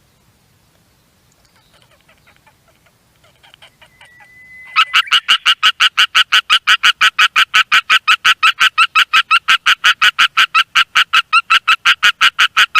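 Japanese tree frog calling: faint, scattered pulses build up over a few seconds, then from about five seconds in a loud, even run of rapid raspy notes, about five a second.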